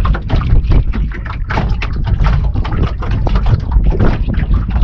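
Wind buffeting the microphone, a continuous heavy rumble, with water slapping and splashing against the boat's hull.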